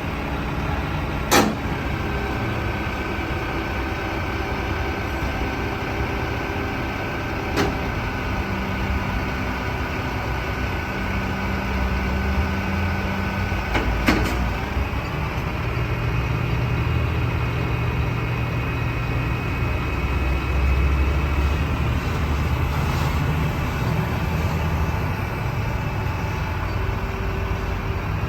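Crane truck's engine running steadily, its pitch pattern shifting about halfway through, with three sharp metallic clicks or knocks spread through the sound.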